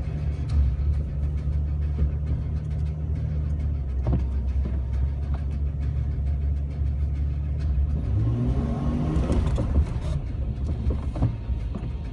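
Jeep Wrangler TJ engine running steadily while driving slowly on snow-covered road in four-wheel drive. About two-thirds in, the pitch rises briefly as it speeds up.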